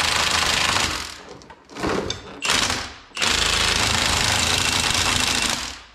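Milwaukee M18 FUEL cordless impact wrench hammering bolts home on a lift bracket on the truck's frame. A burst of about a second, two short bursts, then a long steady run of hammering that stops near the end.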